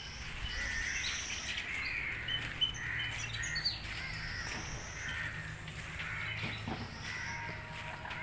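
Several birds calling at once, a jumble of short chirps and harsher calls overlapping, over a steady low hum.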